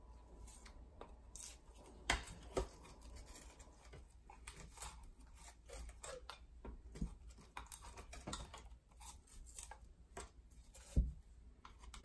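Small scissors snipping irregularly at hair tangled around the plastic brush bar of a Dyson V7 Motorhead, with a louder knock near the end.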